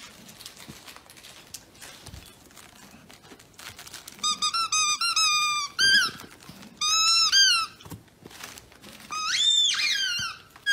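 A dog chewing a plush squeaky toy, its squeaker squeaking. After a quiet start, a quick run of short squeaks comes about four seconds in, then several longer squeaks, each rising and falling in pitch.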